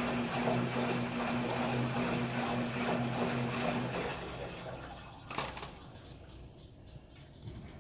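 KMC washing machine running: a steady motor hum over the rush of water, which stops about four seconds in. A single sharp click follows a little over a second later.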